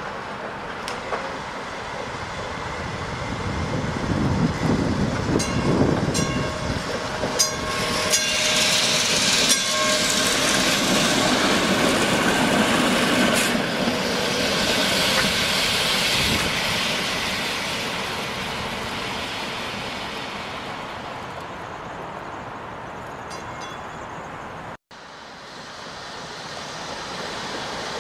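PCC streetcar rolling past at low speed: steel wheels rumbling on the track, with a run of sharp clicks over the rail joints. It is loudest as it passes close by, about a third of the way in, then fades, with a brief dropout near the end.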